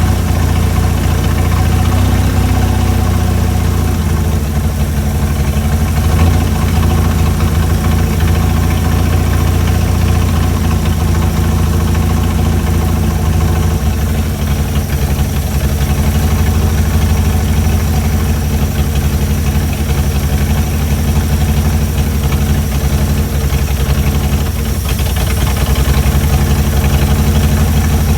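Chrysler Hemi 265 straight-six engine of a CM Valiant idling steadily, with a slight change in its higher sound about 25 seconds in.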